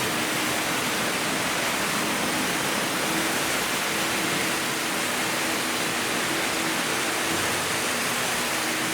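Several Märklin H0 model trains running at once: a steady rushing noise of wheels rolling over metal track, with a faint steady hum from the locomotive motors.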